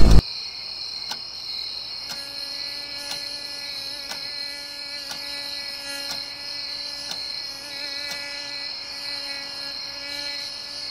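A loud low rumble cuts off at the very start. Then comes a steady high chirring of crickets, and about two seconds in a mosquito's thin, slightly wavering whine joins it. Faint ticks come about once a second throughout.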